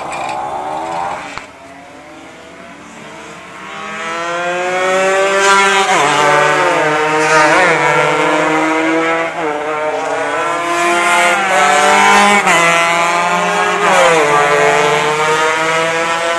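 Small-capacity racing motorcycle engines revving hard and accelerating through the gears on a track. The pitch climbs and then drops at each upshift, over and over. It is quieter for the first few seconds, then loud from about four seconds in.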